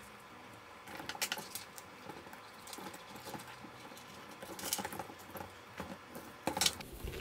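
A nylon strap and plastic GoPro chin mount being handled and fitted onto a motorcycle helmet: scattered rustling, scraping and small clicks, with louder bunches of clicks about a second in, past the middle and near the end.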